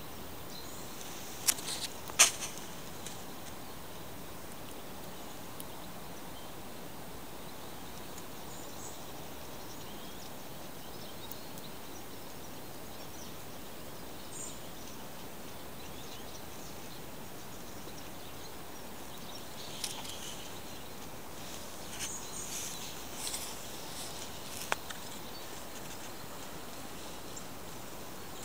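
Steady outdoor background noise, with a few sharp clicks about two seconds in and a cluster of short high chirps and ticks a little past twenty seconds.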